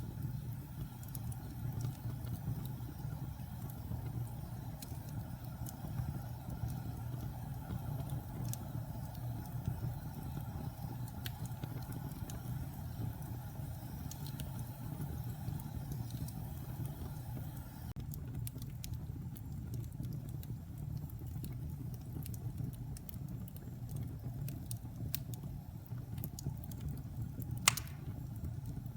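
Wood logs burning in a fireplace: a steady low rumble of flames with scattered small crackles and pops, and one sharp loud pop near the end.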